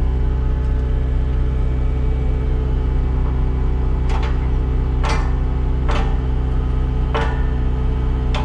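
Cat 259D compact track loader's diesel engine idling steadily, with four sharp metal knocks in the second half as the fork attachment's quick-coupler locking mechanism is worked on one side.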